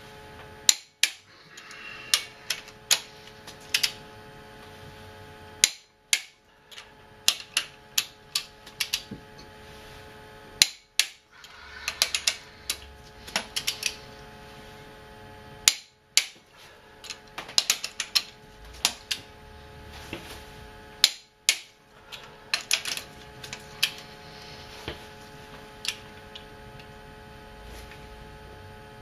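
Click-type torque wrench set to 90 foot-pounds being worked over cylinder-head bolts one after another: clusters of sharp ratchet and breaking clicks, with metal socket clatter, in bursts a few seconds apart. The bolts are already torqued, so the wrench clicks over, showing that each bolt still holds its torque.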